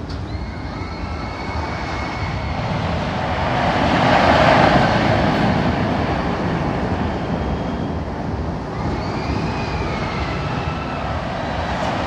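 Rollercoaster train running on its track at speed: a continuous rumble that swells about four seconds in. Two high, drawn-out squeals come over it, one near the start and another around nine seconds in.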